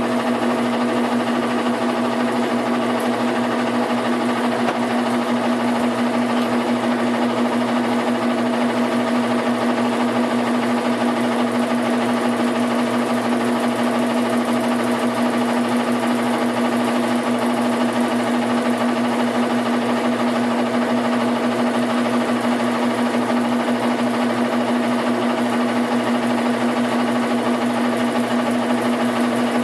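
Washing machine running with a steady hum and a fast, even mechanical rattle that does not change. This is the unwanted noise the machine is making.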